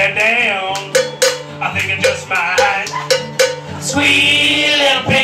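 Live acoustic song: a strummed acoustic guitar with sharp percussive hits on a steady beat and a man singing along; from about four seconds in a voice holds a long note.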